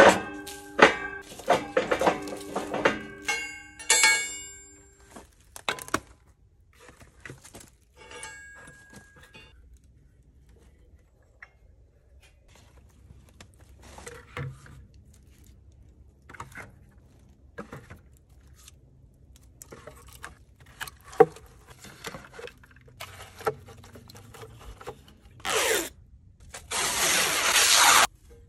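Split firewood dropped and knocked into a galvanized steel bucket: a quick run of clanks that ring like metal, then scattered wooden knocks. Near the end, shrink wrap is pulled off its roll with two long rasping rips.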